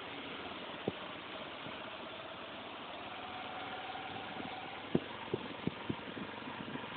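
Vehicle engine running steadily with road noise. There is a sharp knock about a second in and a quick run of knocks around five to six seconds in.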